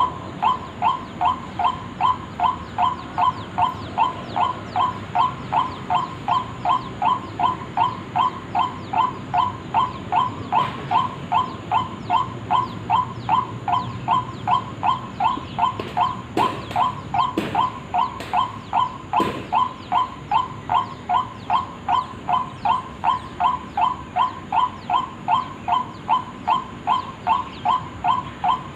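White-breasted waterhen lure call: short, clipped calls repeated at an even pace of about two to three a second, without a break. A few sharp clicks cut in a little past the middle.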